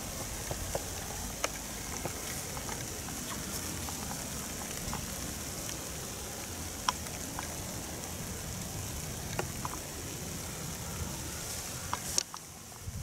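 Steady rain hissing on the woods and leaf litter, with a few sharp drips or ticks standing out, the loudest about seven seconds in; the hiss drops off abruptly near the end.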